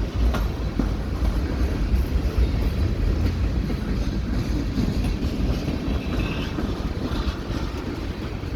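Freight cars of a CN train rolling past, a steady loud rumble of steel wheels on the rails.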